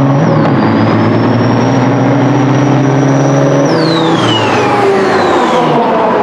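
Two diesel semi-trucks accelerating hard side by side at full throttle, engine pitch slowly climbing under a high turbocharger whine. About two-thirds of the way through, the whine falls away in a long downward glide and the engine note drops.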